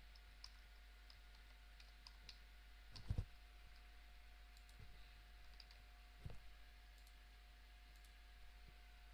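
Faint computer keyboard typing and mouse clicks: scattered light clicks, with two duller knocks about three and six seconds in.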